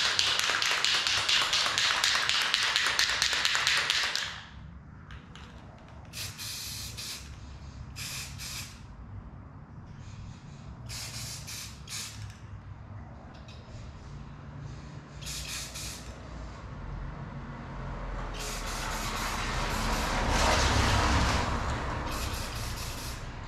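Aerosol spray paint can spraying. A loud hiss runs for about four seconds, then comes in several short bursts, then a longer spray swells and fades near the end. The can is running low on paint.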